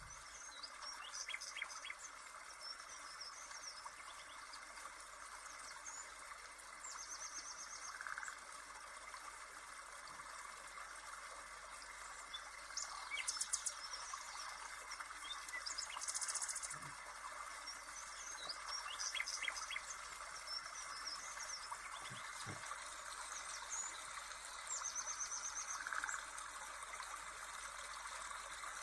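Birds chirping and trilling over a steady insect chirring, like a nature-ambience backing track.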